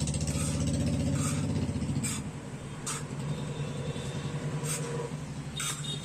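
A motor vehicle engine idling close by, a steady low pulsing hum that eases a little about two seconds in. Over it come short scrapes of steel spoons against the steel tray, about one a second.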